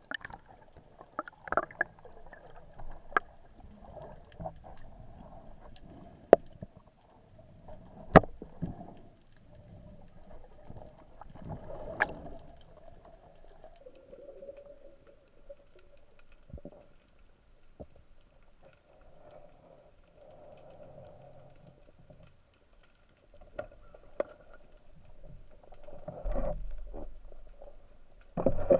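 Underwater sound on a freedive with a speargun: a faint, muffled water hiss with scattered sharp clicks and knocks. Near the end comes a heavier low thump with louder swirling water noise.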